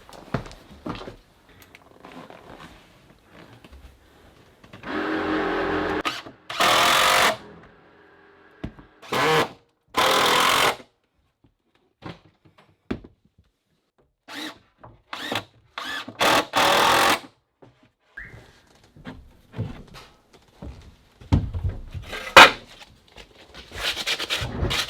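A power tool, such as a drill, running in short bursts of about a second each, six times, with knocks and handling noises between.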